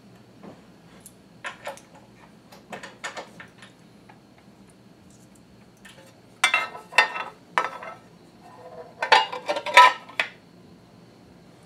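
Metal parts of a Cobra Class 26 leather sewing machine clinking and clanking as they are handled and fitted together. A few light clicks come in the first few seconds, then two louder runs of clatter, one about six seconds in and one about nine seconds in.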